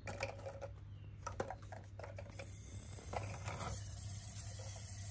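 Light scattered clicks and taps, then, about halfway in, a steady hiss of water starting to run from a tap.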